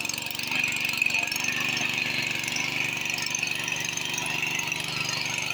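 Small tractor's engine running steadily with an even, rapid pulsing, with a steady high-pitched whine over it.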